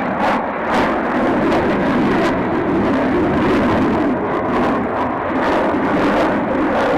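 Aircraft engines running, a loud steady rush of engine noise with brief flutters in the hiss.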